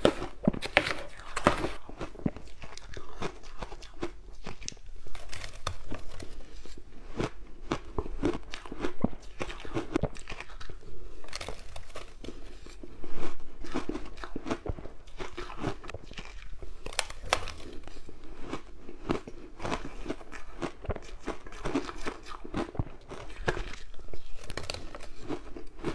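A person biting and chewing mouthfuls of fluffy shaved ice taken by the spoonful: a close, dense run of crunches, with one louder crunch about halfway through.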